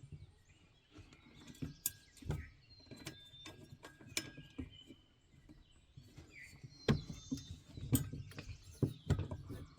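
Birds chirping in short calls, with scattered clicks and knocks.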